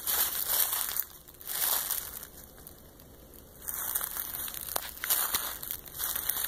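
Footsteps crunching through dry leaf litter and twigs, in bunches of steps with a short pause a little before halfway.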